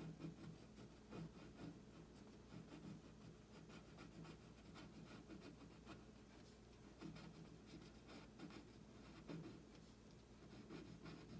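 Graphite pencil scratching on paper in a faint, continual run of short sketching strokes.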